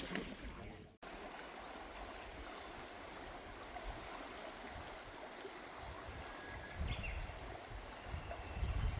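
Mountain stream running over stones, a steady rush of water that cuts in after a brief gap about a second in. A few low rumbles come in near the end.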